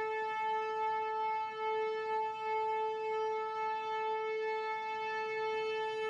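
A single steady tone, held at one unchanging pitch with many overtones.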